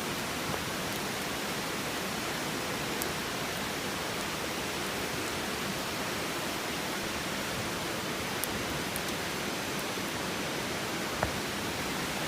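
Campfire burning, with a handful of sharp crackles and pops over a steady rushing noise.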